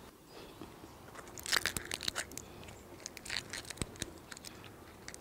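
Plastic blister pack of tablets crackling and crinkling as pills are pressed out of it by hand, a run of sharp crackles from about a second and a half in until near the end.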